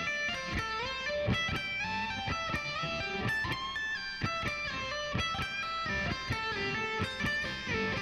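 Electric guitar playing a fast run of single picked notes through the A minor pentatonic scale, the pitch stepping up and down as it moves between positions along the neck.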